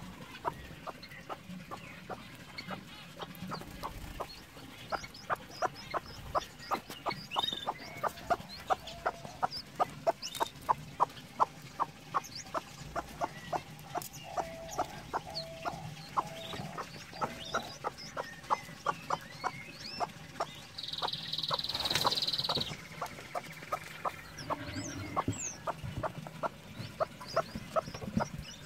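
Broody hen clucking steadily to her brood, short low clucks at about three a second: the brooding call a mother hen uses to keep her chicks close. Golden pheasant chicks peep faintly over it, and one louder high call stands out about three-quarters of the way through.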